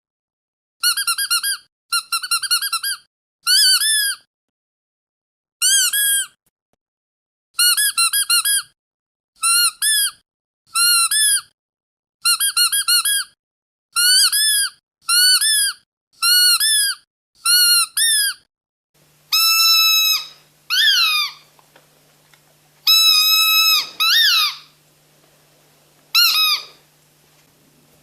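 Squeaky dog toy squeezed again and again: short high-pitched squeaks in quick groups of two to four with pauses between, then from about two-thirds of the way through longer squeaks that bend up and down in pitch over a faint hum.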